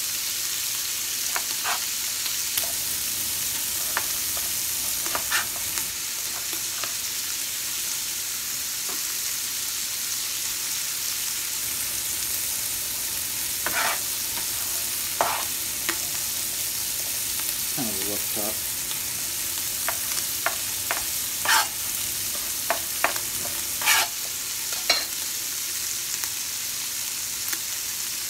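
Hot Italian sausage meat sizzling steadily as it browns in a pot, with scattered sharp taps of a chef's knife dicing an onion on a plastic cutting board, more frequent in the second half.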